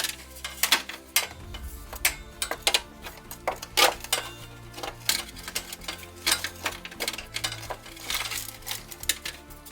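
Metal tools and parts clinking and clicking irregularly, several sharp knocks a second, over background music.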